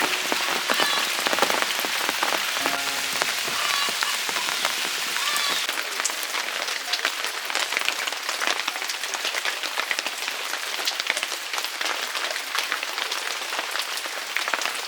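Heavy rain falling steadily, with a constant patter of countless drop impacts.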